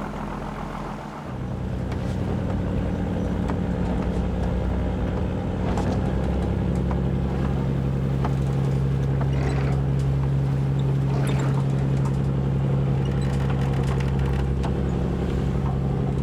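Fishing boat's engine running steadily; its note changes and settles about a second in, with a few faint knocks over it.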